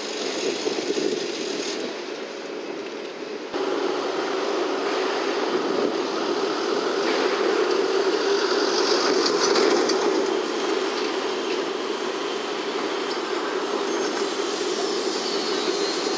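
Steady rumble of distant vehicle noise, stepping up abruptly about three and a half seconds in and swelling a little towards the middle.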